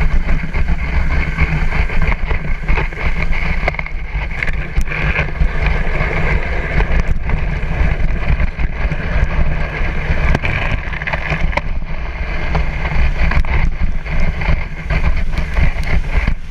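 Dog sled running over a partly bare, gravelly snow trail: a steady rough rumble and scraping from the sled, with scattered clicks and knocks, and wind on the camera microphone.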